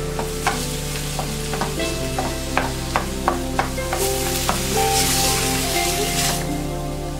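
A spatula stirs minced chicken and onions frying in a stainless steel pan, knocking and scraping against the metal about a dozen times. From about four seconds in, a louder sizzle rises for a couple of seconds.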